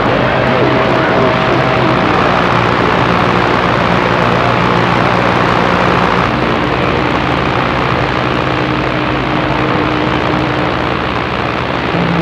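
Radio receiver's speaker giving out steady loud static on a skip band, with a low hum and faint whistling heterodyne tones drifting in and out.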